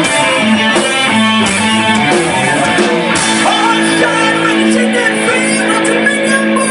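Rock band playing, with guitar strumming to the fore.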